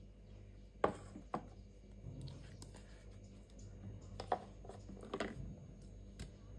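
A stainless steel mixer-grinder jar being emptied by hand: two sharp taps about a second in, then softer clicks and scraping as paste is wiped out of the jar into a steel bowl, over a steady low hum.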